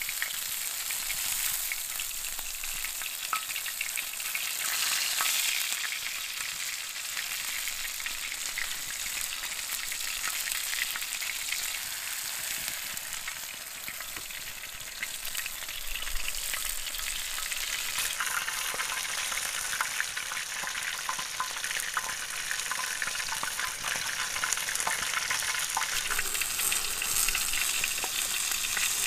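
Sliced peppers, tomatoes, onion and a burger patty sizzling in a ridged grill pan over a campfire: a steady frying hiss with many small pops and crackles.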